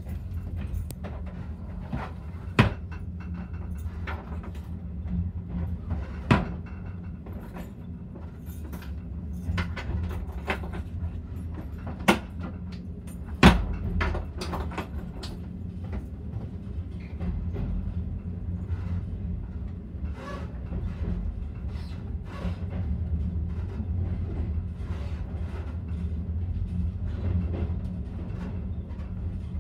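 Passenger train carriage rolling slowly out of a station: a steady low rumble with scattered clicks and several loud, sharp clanks from the running gear and couplings. The small clicks come more often in the second half.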